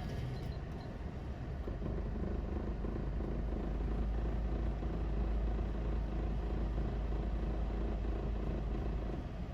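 Suzuki Every van's engine running with a steady low drone, joined about two seconds in by a steady whirring tone that drops out near the end. This is the abnormal noise that appears with the air conditioning switched on, which the owner suspects comes from the clutch release bearing.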